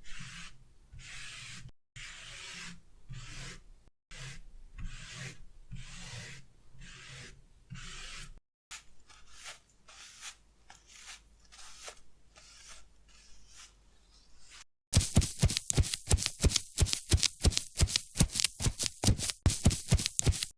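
Paper being rubbed in slow, even scratchy strokes, one to two a second. The strokes then turn faster and fainter, and near the end give way to a louder run of sharp crinkling crackles, about five a second.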